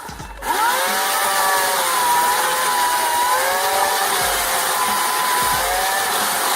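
Corded electric chainsaw (Portland 14-inch) whining as its motor spins up again about half a second in, then running on with its pitch sagging and recovering a few times as the chain is loaded in a cut into a tree.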